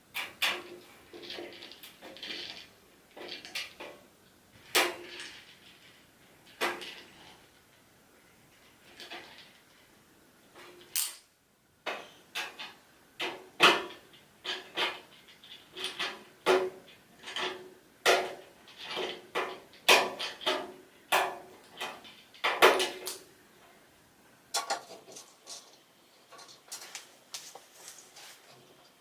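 Steel shelving parts of an IKEA Hyllis unit clanking and clicking together as the shelf is assembled: a run of separate metallic knocks with brief ringing, thickening after a short pause partway through.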